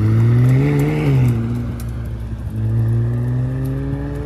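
McLaren 600LT's twin-turbo V8 pulling away under throttle: the engine note rises, drops about a second in at an upshift, then climbs again in the next gear.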